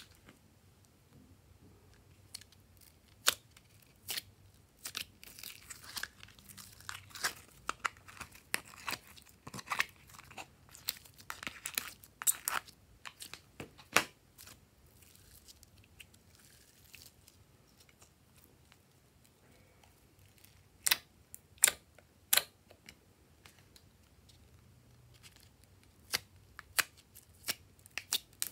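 Glossy slime squeezed and stretched by hand: sticky crackling and small pops in irregular clusters, with a few louder sharp clicks in the second half.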